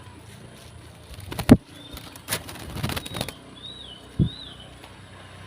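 Wing flaps from an oriental magpie-robin (kacer): a loud flutter about one and a half seconds in, a quick run of flaps a second later, and another near four seconds, with two faint short whistled notes rising and falling between them.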